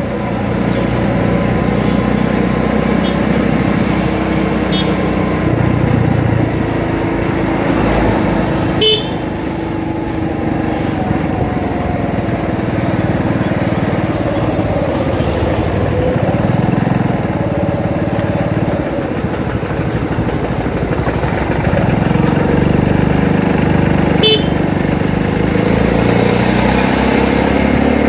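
Motorcycle riding along a road, its engine and the rush of travel making a steady noise, with a short vehicle horn toot about 9 seconds in and another near 24 seconds.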